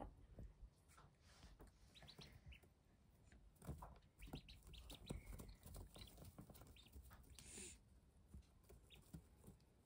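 Ducklings peeping faintly: short, high cheeps scattered throughout, with a few soft taps and rustles as they move about on wood-shaving bedding.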